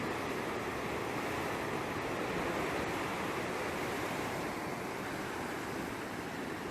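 Sea surf: a steady wash of waves on the shore.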